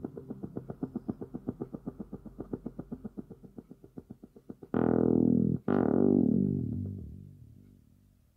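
Korg Volca analogue synthesizers playing a fast repeating sequenced pattern that fades down. Two loud held synth notes follow, each growing darker as it decays, and the jam dies away to silence near the end.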